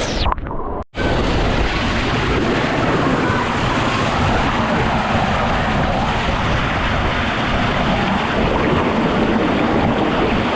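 Loud, steady rush of water and wind noise on the microphone, with a brief cut to silence about a second in.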